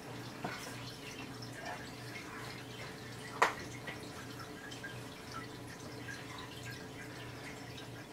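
Saltwater aquarium water trickling and dripping over a low steady hum, with one sharp click about three and a half seconds in.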